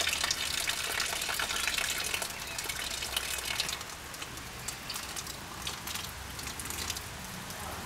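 Rainwater gushing from a roof gutter that has just started to flow, with rain falling around it. The gush eases a little about four seconds in.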